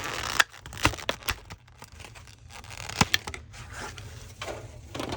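Plastic wrapping crinkling and tearing, with a few sharp clicks and taps: the shrink wrap is being pulled off a Pokémon card tin.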